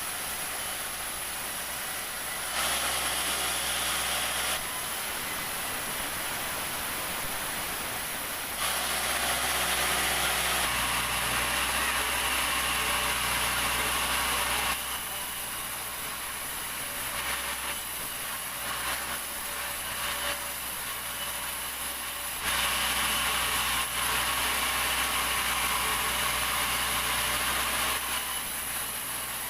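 Sawmill saw running steadily, its sound shifting every few seconds between quieter running and louder stretches as it cuts through timber, the longest loud passes about a third of the way in and again near the end. A constant high whine runs under it all.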